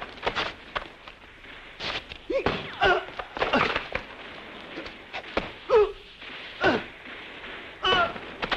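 A string of sharp cracks and thuds, with several short wavering cries or whines sliding in pitch between them.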